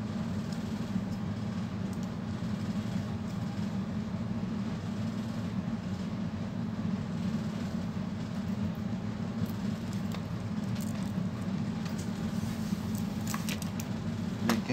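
A steady low hum throughout, with a few light clicks and handling sounds near the end.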